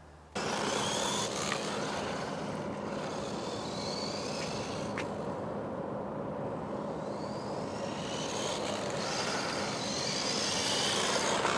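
Small electric motor of a WLtoys 144001 1:14-scale RC car whining up in pitch several times as it drives on dirt, over a steady rush of tyre and ground noise.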